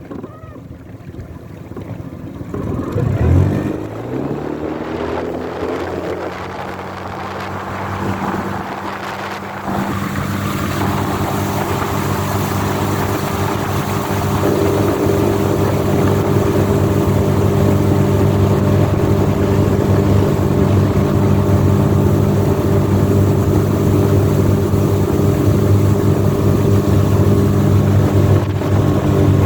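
Suzuki 20 hp outboard motor starting about three seconds in, its pitch rising as it catches, then idling steadily. Near ten seconds it is throttled up and it runs loud and steady under way, with wind and water hiss.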